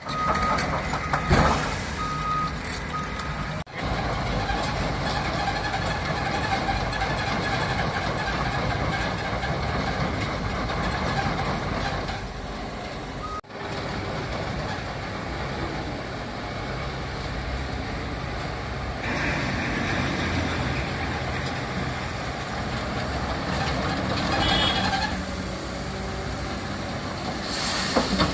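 Caterpillar 320 hydraulic excavator's diesel engine running steadily as the machine works, with a beeping alarm in the first few seconds.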